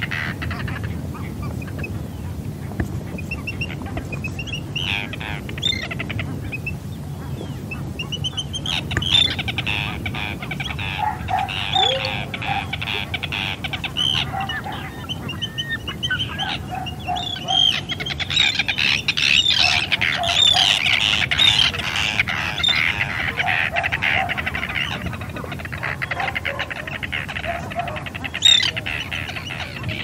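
Arctic terns calling: a run of short, harsh, high calls, often overlapping, coming thickest past the middle, over a steady low rumble.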